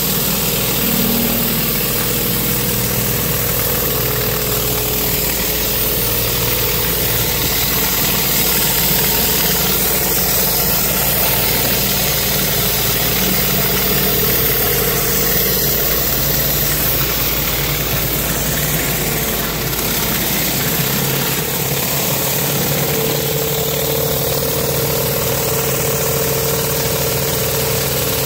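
Pressure washer running steadily with a Sprintjet rotary surface cleaner spraying over concrete: a constant machine hum under the hiss of the spinning water jets. The hum changes tone slightly about 21 seconds in.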